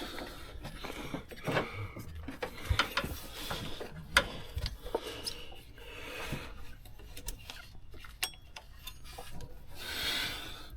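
Hand work on a serpentine belt and engine pulleys: scattered clicks, knocks and rubbing as the belt is worked over the pulleys.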